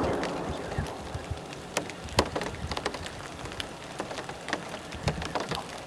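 Rain pattering on the roof of a box blind: a steady hiss with irregular sharp taps of drops.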